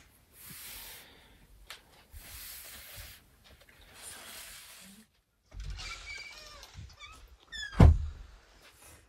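Glass tea cups and a metal teapot clinking on a metal tray, with a short ringing of glass and one loud knock near the end as something is set down hard. Soft rustling comes in the first half.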